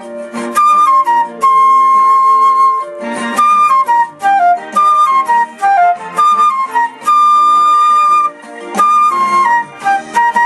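Flute playing a melody of long held notes and short falling runs over a lower accompaniment.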